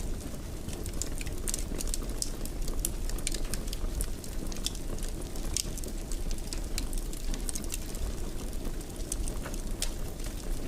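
Wood fire burning in a stone fireplace: a steady low noise of the flames under frequent small crackles and pops.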